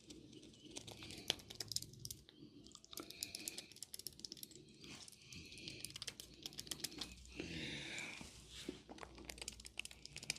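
Hands massaging oiled skin and hair: rubbing with many small clicks close together, fuller for a second or so around the eight-second mark.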